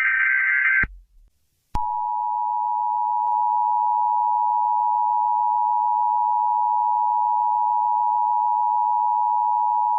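Emergency Alert System audio: the end of a buzzing SAME digital header burst, then, after a short gap, the EAS two-tone attention signal (853 and 960 Hz together) starting about two seconds in and holding steady for about eight seconds. This sequence opens an emergency warning broadcast.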